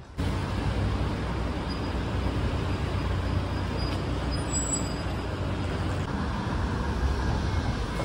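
Steady street traffic noise: a low, even rumble of road vehicles.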